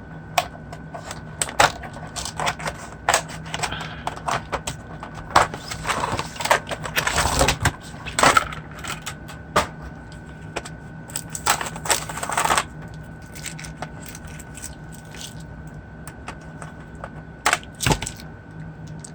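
A plastic case and loose steel jigsaw blades being handled: irregular clicks, clacks and light metallic rattles, with a couple of longer scraping, rustling stretches about six and eleven seconds in. A faint steady hum lies underneath.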